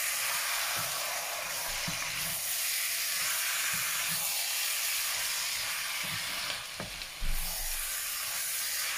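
Diced chicken breast and onions sizzling in a frying pan, stirred with a wooden spatula, with a steady hiss and occasional light knocks of the spatula against the pan. A low thump about seven seconds in.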